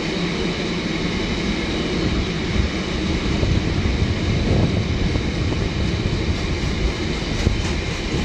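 Long rake of Yeoman hopper wagons on a stone train rolling past, with the steady noise of their wheels running on the rails.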